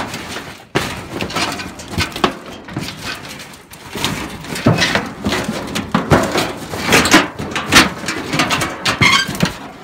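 Irregular crunching, scraping and knocking as someone clambers through dry leaves and rubble past rusty sheet metal, with the camera rubbing and bumping close against things.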